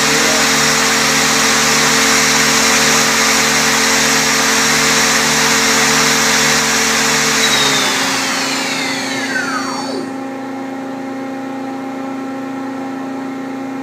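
Mazak Quick Turn 20 CNC lathe spindle running at speed with a steady machine whine, then winding down about eight seconds in: a falling whine over about two seconds as the spindle decelerates to a stop. The machine's steady hum carries on after it.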